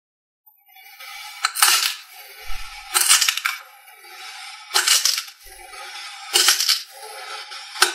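A knife slicing through a dome of kinetic sand: a gritty, crunching scrape that starts about a second in, swelling into a sharper crunch four times, about every second and a half, as each slice is cut through.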